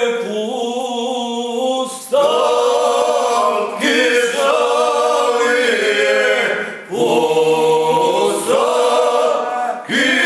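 A group of men singing a Krajina folk song a cappella. The song goes in short phrases of two or three seconds, each opening with a slide up into a long held note.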